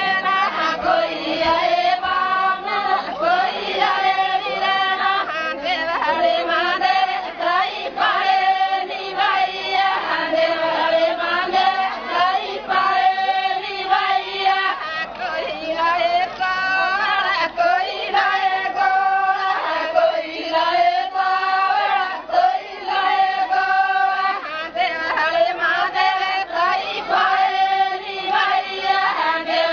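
Voices singing together in chorus, a Gor Banjara folk song, repeating short melodic phrases.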